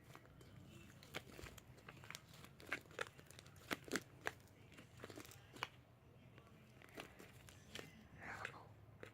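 Homemade slime being handled, stretched and squished, giving faint irregular clicks, pops and crackles, a few sharper ones in the middle.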